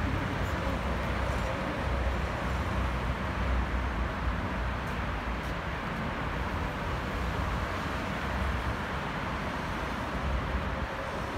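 Steady outdoor rumble and hiss of traffic and an EP3D electric train still some way off along the track, with a faint rising whine near the end.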